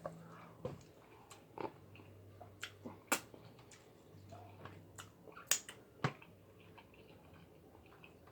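Close-up eating of a seafood boil: irregular sharp clicks and cracks with chewing, the loudest about three seconds in and twice around five to six seconds in.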